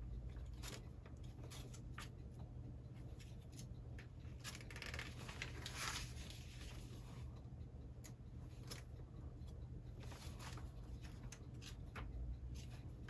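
Faint rustling of paper and light clicks as catalogue pages are leafed through and handled, with a longer rustle about five seconds in.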